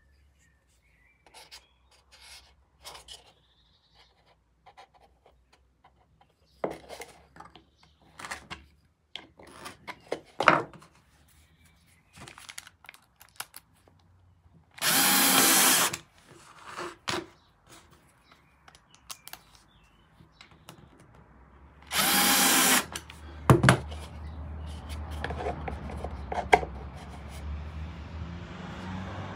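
Cordless drill/driver running in two short bursts, about a second and a half each, driving screws into a plywood board. Between them come scattered clicks and knocks from the screws and the plastic storage bin being handled, and a steady low noise comes up near the end.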